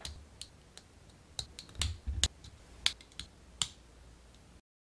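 Hard plastic model-kit parts of a Gunpla arm being handled and pressed together: a string of about ten sharp clicks, the loudest a little before halfway, some with a dull knock beneath them. The sound cuts off abruptly near the end.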